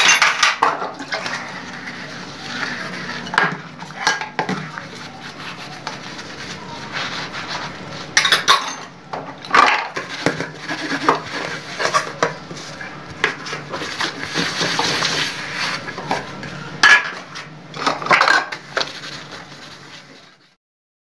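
Steel dishes and pots being washed by hand: continuous scrubbing and scraping, with scattered clanks of metal pans knocking together. It fades out near the end.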